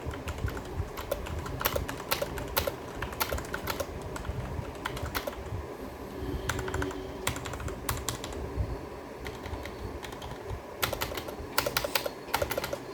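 Typing on a Cosmic Byte CB-GK-18 mechanical keyboard with Outemu Red linear switches: irregular key clacks, with a quick flurry of keystrokes near the end.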